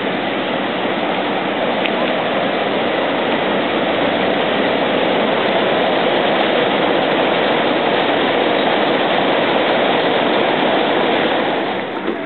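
Steady rushing of a river weir: water pouring over the sill and churning white in the roller at its foot. It drops away near the end.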